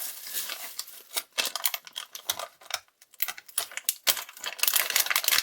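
Plastic packaging being handled and unwrapped: dense, irregular crinkling clicks with a short lull in the middle, busiest near the end.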